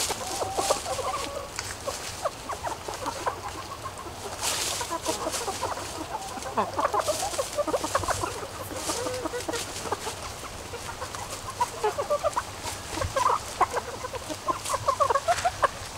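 A flock of asil chickens clucking softly and repeatedly as they forage, with scattered rustles in dry fallen leaves.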